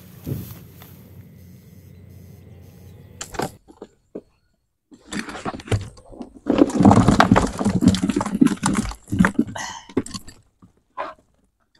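Splashing and clattering in a container of water as live fish are handled, starting about five seconds in and lasting several seconds, after a steady low outdoor noise.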